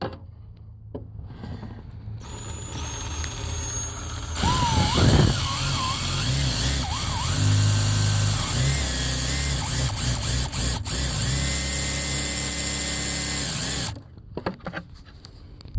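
Power drill boring a 3/8 inch hole through a tough plastic truck kick panel. It starts about two seconds in, bites in hard at about four seconds with a wavering pitch as it cuts, and stops abruptly near the end.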